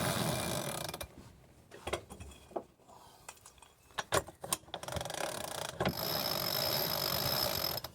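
Freshly cleaned and greased sailboat winch drum spun by hand, running freely with a steady ratcheting whirr of its pawls. It runs down about a second in, a few clicks and knocks follow, then it is spun again for about three seconds and stops near the end.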